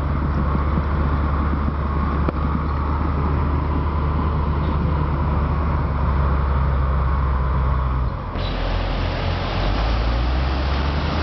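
Diesel engine of a John Deere skidder running steadily close by, a deep even drone. A little over eight seconds in the sound cuts to a Timbco tracked feller-buncher running, its engine drone lower in the mix with a brighter hiss over it.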